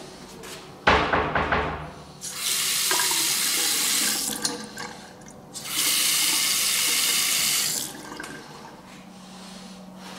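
Bathroom sink faucet running water into the basin in two spells of about two seconds each, with a short pause between. A loud thump comes about a second in, before the water starts.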